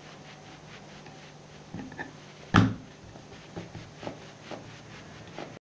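Wooden rolling pin rolling out dough on a round wooden board, with soft repeated rolling strokes and a louder wooden knock about two and a half seconds in.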